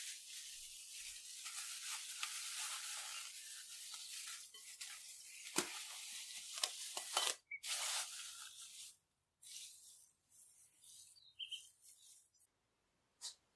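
Plastic cling film rustling and crinkling as it is pulled and stretched over a glass bowl, for about seven seconds, followed by a few short separate rustles as the covered bowl is handled.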